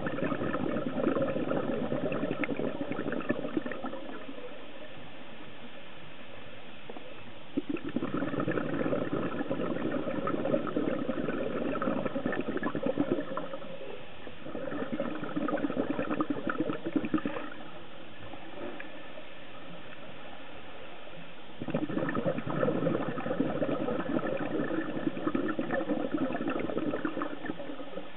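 Scuba diver's exhaled bubbles bubbling and gurgling underwater in four bursts of several seconds each, with quieter gaps between them as the diver breathes in.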